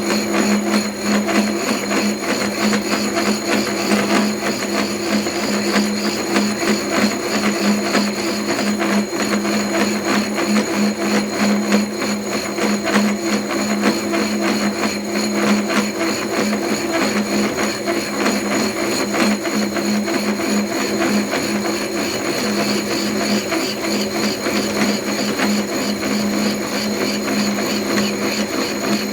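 Milling machine cutter taking a steady cut in metal: a constant hum from the machine under a dense, fine rattle of the cutter chipping.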